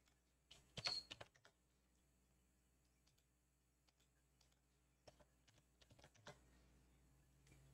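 Faint computer keyboard typing and clicks: a short run of keystrokes about a second in, then a few scattered clicks later on.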